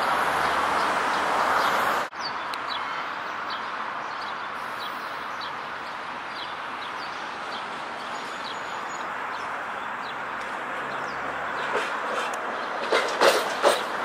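Steady rumble of a tram running on the line, cut off abruptly about two seconds in, then a quieter steady outdoor hum with small repeated bird chirps. Near the end an approaching articulated tram's wheels knock sharply several times over rail joints.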